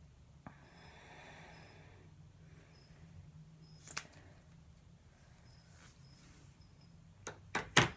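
Quiet room with soft handling noise, a sharp click about four seconds in and three quick clicks near the end.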